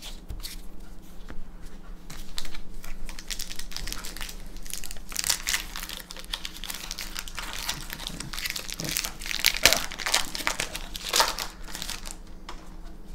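Foil wrapper of a Magic: The Gathering booster pack crinkling and tearing as it is pulled open by hand, in irregular crackly bursts.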